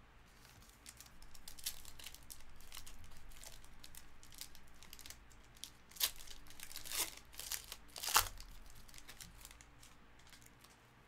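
Trading-card pack wrapper crinkling and tearing as a pack is opened, with cards shuffled in hand; the loudest crinkles come around six, seven and eight seconds in.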